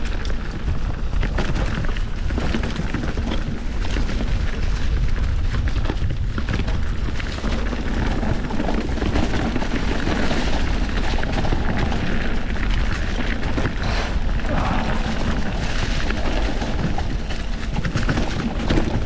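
Wind rumbling on the microphone of a camera mounted on a moving mountain bike, with the bike rattling and knocking over a rough trail.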